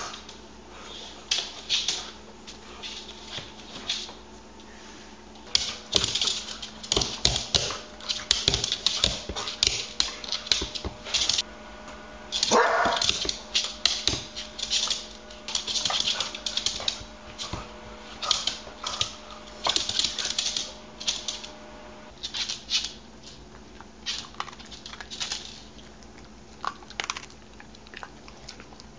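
Dog eating dry kibble from a bowl on a hard floor: rapid, irregular clicking and clattering of kibble against the bowl and floor, with chewing. About twelve and a half seconds in, the dog gives one short cry.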